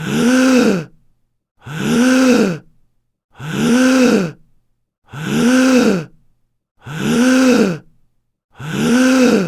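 A man's voiced gasp as he sharply breathes in, repeated the same way six times, each about a second long with the pitch rising then falling, separated by short silences.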